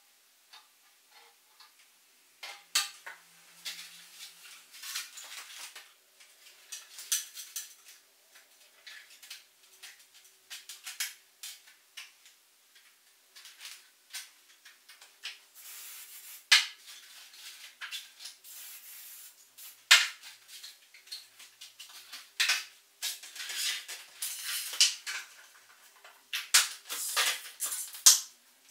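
Light, thin-walled 3D-printed plastic parts being handled and set down on a tabletop: irregular sharp clicks and clattering knocks with some scraping and rustling between them.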